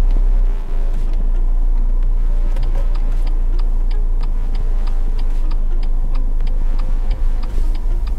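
Car turn-signal indicator ticking steadily, about two to three clicks a second, starting a couple of seconds in, over the low rumble of the engine and tyres heard inside the cabin.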